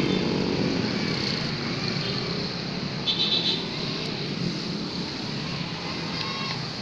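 Road traffic: a passing vehicle's engine and tyre noise, slowly fading, with a brief faint high-pitched sound about three seconds in.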